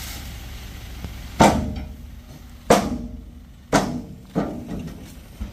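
Four loud hits at uneven spacing, each ringing briefly before it dies away.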